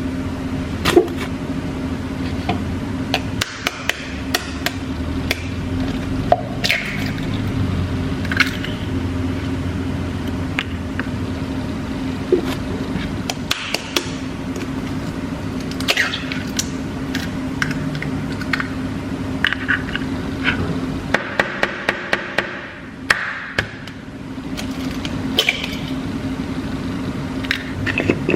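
Kitchen work: utensils and dishes knocking and clinking in irregular clicks over a steady low hum.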